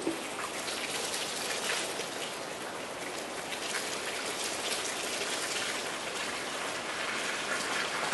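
Water rushing and splashing as a lake overtops and pours through a breach in a noncohesive earthen dam, a steady hiss of spray that grows slightly louder near the end.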